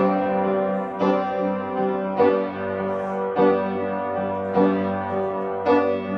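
Upright piano played slowly, a chord struck about once a second and left to ring.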